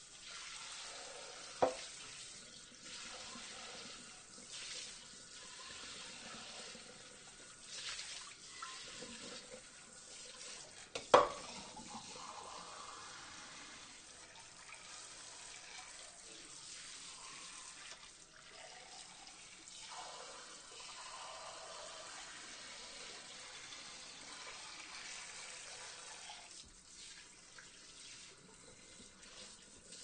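Water spraying over dishes in a sink, a steady hiss. A sharp knock of dishware comes about two seconds in and a louder one about eleven seconds in.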